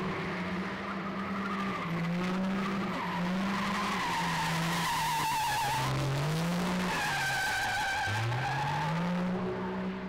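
Pickup truck drifting at high revs: the engine's pitch dips and climbs as the throttle is worked, rising sharply twice, over continuous wavering tyre squeal, with the loudest tyre screech near the middle.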